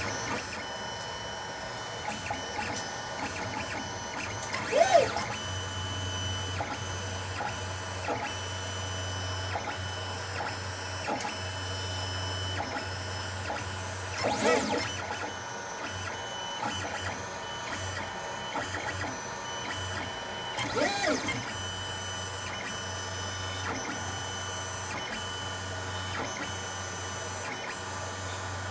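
3D printer's stepper motors running during a test print: a steady whine of several held tones with a low hum. Brief chirps that sweep up and down in pitch come about 5, 14 and 21 seconds in.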